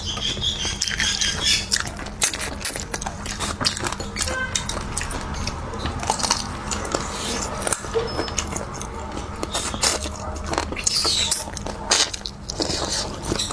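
Close-miked biting and chewing of spicy chicken feet, with many irregular wet clicks and crunches.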